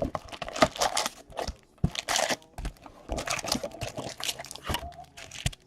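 Plastic wrapping on a box of trading cards being torn and crinkled open: an irregular run of crackling, rustling tears.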